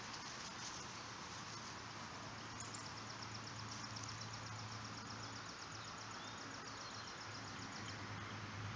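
Outdoor ambience with an insect trilling, a rapid high-pitched pulsing that starts about three seconds in and stops near the end, over a steady low hum.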